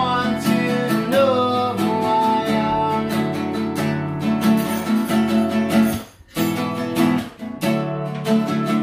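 Acoustic guitar being strummed in a steady rhythm, with a brief break about six seconds in before the strumming carries on.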